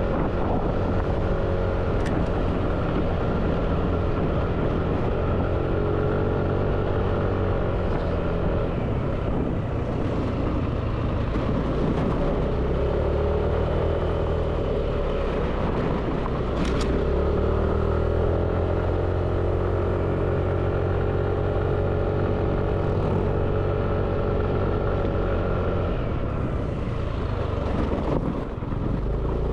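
Small quadcopter drone's propellers buzzing in flight, a steady multi-tone drone whose pitch shifts now and then as the motors change speed.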